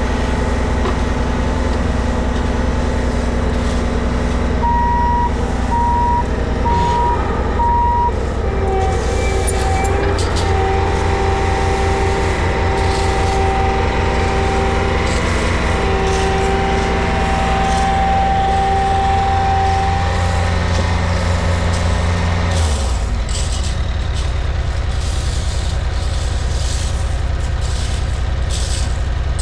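Heavy equipment engine running steadily, with a backup alarm beeping about once a second for a few seconds, followed by a longer steady alarm tone broken by short gaps. About three quarters of the way through, the engine's low note changes.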